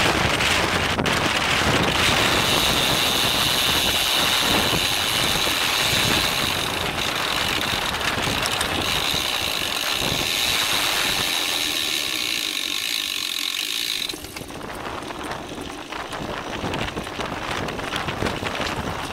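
Road bike's rear freehub buzzing as the rider coasts, a steady high-pitched whir over wind rush on the microphone. It starts about two seconds in and cuts off suddenly about three quarters of the way through, when the ratchet stops spinning.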